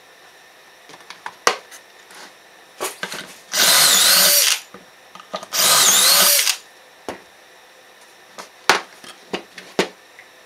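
Power drill boring pocket holes through a pocket-hole jig: two drilling runs of about a second each, the pitch dropping as each stops. Sharp knocks and clicks come before and after them.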